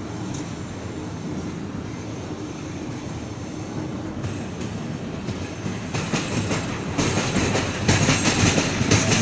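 Train running along the station tracks, getting louder from about six seconds in, with a growing run of short clicks from the wheels over the rails.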